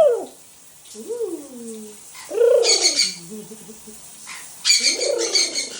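Pet macaw vocalizing: a soft rising-and-falling call about a second in, then two louder calls, one midway and one near the end.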